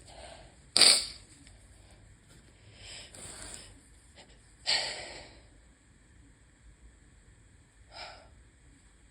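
A person sneezing twice from allergies, a sudden sharp sneeze about a second in and another about four seconds later, each after a short breath in. A brief, weaker sound comes near the end.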